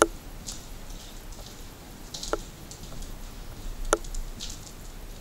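Footsteps crunching on grit and debris, a scatter of small crackles, with three sharp clicks, the loudest near the end.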